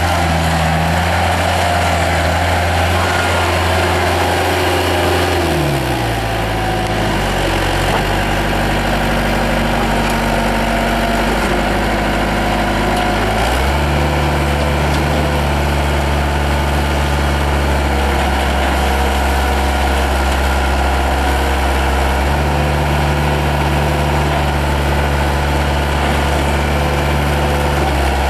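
Diesel engine of a Bobcat 853 skid steer loader running steadily; its speed drops about six seconds in, runs lower for several seconds, then comes back up again around the middle and holds.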